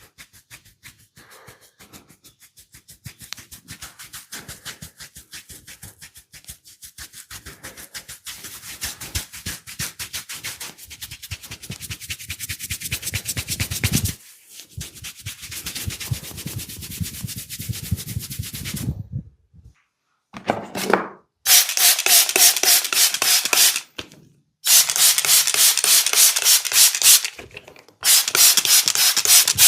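Rapid rubbing strokes of a massage on oiled skin, many strokes a second. They start faint and build, then after a short pause come three loud, fast runs with brief stops between them.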